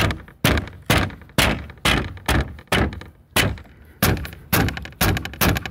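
A hand hammer striking an old car trunk seal to flatten out its curve: about a dozen sharp blows, roughly two a second.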